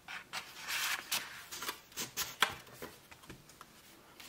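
Cardboard CD sleeves and paper inserts rustling and sliding as they are handled, with several sharp taps and clicks, the loudest about two and a half seconds in.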